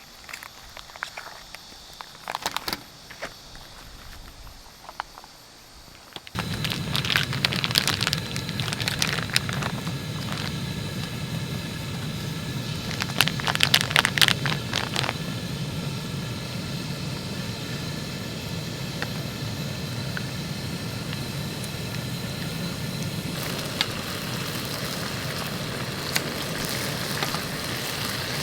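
A few handling clicks, then about six seconds in a cooking burner comes on and runs with a steady hiss. Crackling and sizzling from a pan over it, growing brighter near the end.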